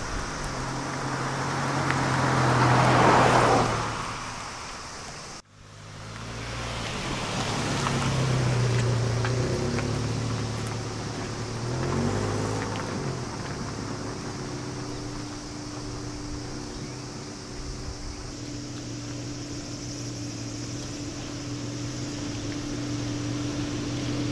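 Toyota HiAce van driving up, its engine and tyre noise swelling and fading, then cutting off suddenly. It comes up again more slowly, with the engine note rising and falling as it manoeuvres, and then settles into a steady idle hum.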